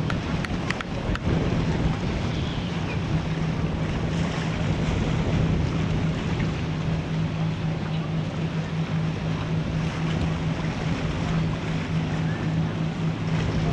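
Wind buffeting the microphone over splashing waves and water, with a boat engine's steady low drone underneath from about a second in.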